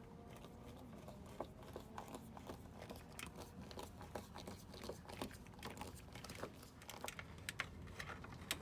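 Faint, irregular small clicks and taps as the mounting screws of a new LED cabin light are driven into the fiberglass cabin ceiling through pilot holes.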